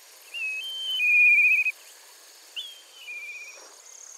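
Two whistled calls, each a short higher note followed by a longer, wavering lower note, over a steady high insect chirring.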